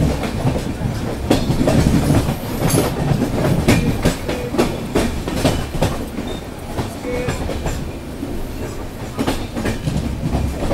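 Train running along the track, its wheels clattering over rail joints with irregular clicks and knocks over a steady low rumble.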